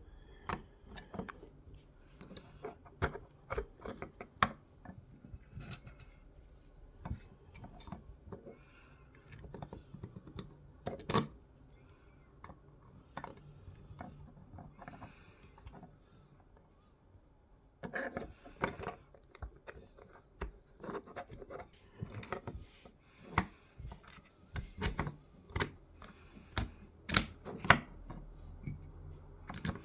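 Small hardware being handled and M3 bolts being threaded into 3D-printed plastic parts: scattered light clicks, taps and scratches. There is a quieter lull in the middle, then denser clicking.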